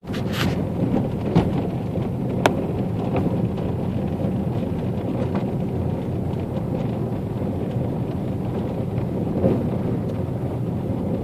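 Steady low rumble of a vehicle rolling along a gravel dirt road, with occasional sharp clicks and knocks from the gravel and bumps, the sharpest about two and a half seconds in.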